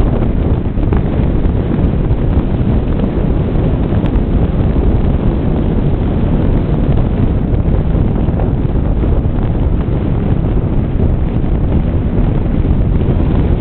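Wind buffeting the microphone in a moving convertible: a loud, steady low rumble with no let-up.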